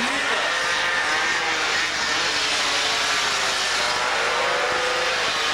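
Several 50 cc two-stroke racing mopeds at full throttle through a corner and past, their engine notes overlapping and rising and falling in pitch as they shift and accelerate.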